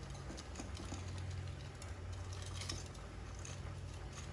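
Kitchen tongs clicking and tapping faintly against a Ninja air fryer basket as breaded cod pieces are turned over, a few scattered light clicks over a steady low hum.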